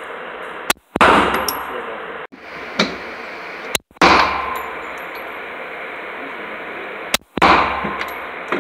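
9mm Glock 19 Gen4 pistol fired three times, about three seconds apart, each shot booming and echoing off the walls of an indoor range. Quieter bangs fall between them.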